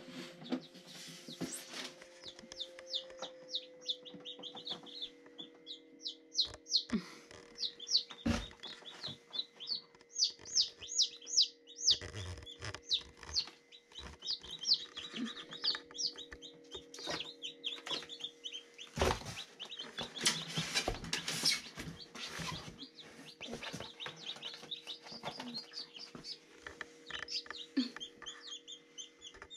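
Newly hatched chicks peeping, many short high chirps in quick succession, inside a Little Giant styrofoam incubator. Scattered knocks and rustles come from its lid and from hands handling chicks and eggshells, over a steady low hum.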